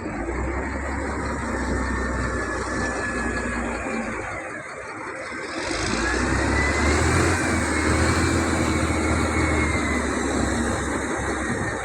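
Heavy equipment engine running, growing louder about six seconds in as a high whine rises and falls over it.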